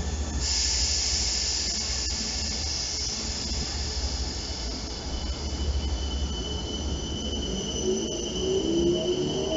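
South Western Railway electric multiple-unit train moving slowly through the station over a steady low rumble. A high-pitched hiss sets in about half a second in, a thin steady whistle joins around six seconds, and a rising whine comes in near the end.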